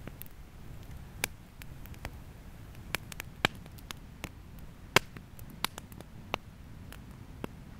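Wood campfire crackling: a dozen or so irregular sharp pops, the loudest about five seconds in, over a low steady rush of burning.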